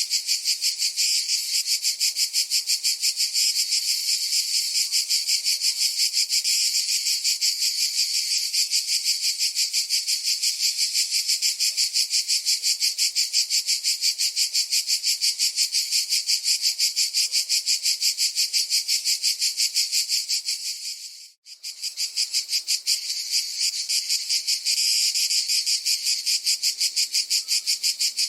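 Cicada chorus: a loud, high, rapidly pulsing buzz that keeps an even rhythm. It fades and drops out for a moment about three-quarters of the way through, then comes straight back.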